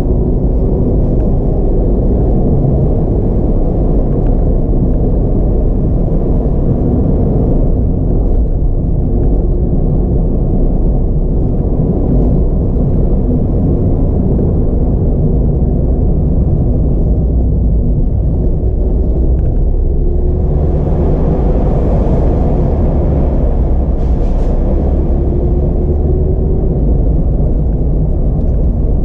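Mazda MX-5 RF's four-cylinder engine and tyre noise heard from inside the cabin while driving, a steady low rumble whose pitch rises and falls slightly as the revs change. For a few seconds about three-quarters of the way through, a louder hiss joins in.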